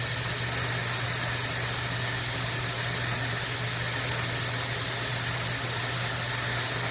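SnugLuv high-speed hair dryer running steadily: an even rush of blown air over a low motor hum.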